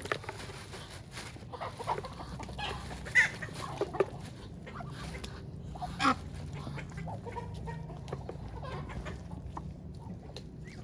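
Chickens clucking: a string of short calls, the loudest about three and six seconds in, thinning out to a few faint ones after that.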